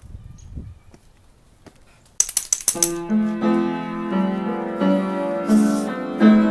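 Music starts about two seconds in: a quick rattle of percussion strokes, then sustained keyboard-like notes stepping through a tune.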